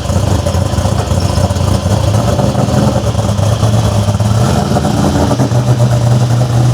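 A car engine running at low revs with a steady low rumble; its note rises a little about two-thirds of the way through.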